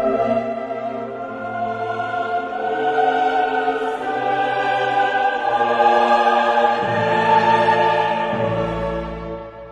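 Background music: slow orchestral music with choir voices, long held chords that fade out at the end.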